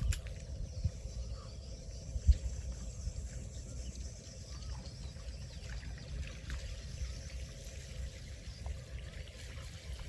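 Water trickling and lapping over a ragged low rumble, with one sharp knock about two seconds in.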